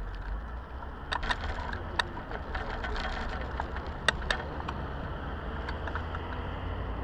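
A bicycle being ridden, heard from a camera mounted low on the front fork: a steady rumble of wind and tyres on the path, with a few sharp clicks and rattles from the bike and mount, in pairs about a second in and about four seconds in.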